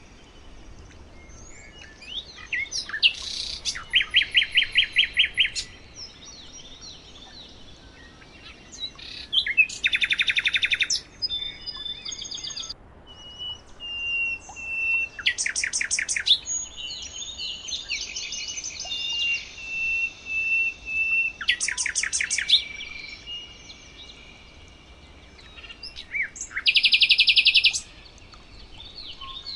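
Songbirds singing, with a loud fast trill of rapidly repeated notes coming about every five seconds, a long steady whistled note through the middle, and shorter chirps in between.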